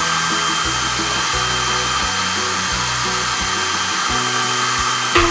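Handheld electric hair dryer running steadily, a constant rush of blown air with a steady high motor whine, with a brief click near the end. Background music with a bass line plays underneath.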